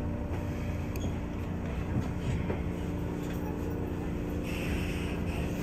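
Kintetsu express train running slowly along a station platform, heard from just behind the driver's cab: a steady low rumble with a constant hum and faint rail clicks. A brief high-pitched squeal comes in about four and a half seconds in.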